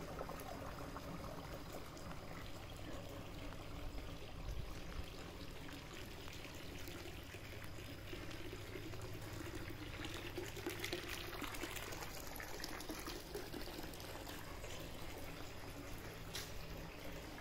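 Water trickling and pouring steadily in a swimming pool.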